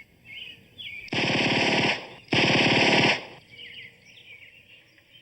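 Two bursts of rapid automatic gunfire, each under a second long, about a second apart. Faint birds chirp around them.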